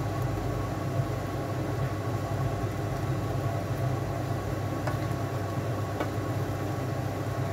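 A steady low hum, the loudest thing throughout, under a few soft taps and scrapes of a wooden spatula stirring mung bean stew in a nonstick pan on a gas hob.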